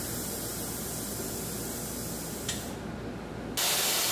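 Steady hiss with a sharp click about two and a half seconds in, then a louder hiss that starts abruptly near the end.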